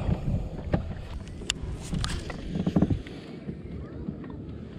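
Handling noise aboard a plastic fishing kayak: scattered knocks and clicks of hull and gear as the angler shifts about, over a low wind rumble on the microphone.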